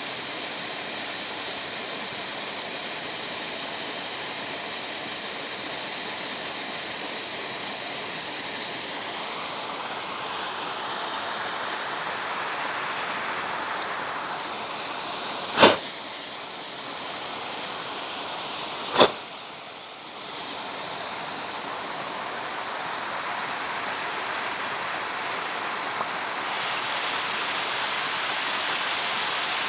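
Waterfall rushing as a steady, even roar of falling water. Two sharp knocks about three seconds apart cut through it midway, louder than the water.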